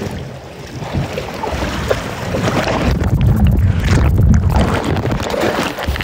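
Strong wind blowing across the microphone, with water splashing around a Sunfish sailboat's hull in gusts of over 30 knots. The low rumble eases briefly just after the start, then builds again.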